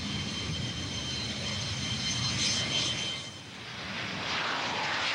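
Jet aircraft engines running: a wide rushing noise with a steady high whine. The noise dips briefly a little past three seconds in, then builds again.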